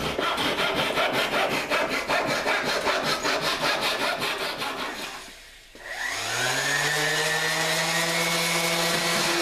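Fast, rapidly repeated rasping strokes of a tool working into cedar planking for about five seconds. After a brief pause, a power drill's motor spins up and settles into a steady whine.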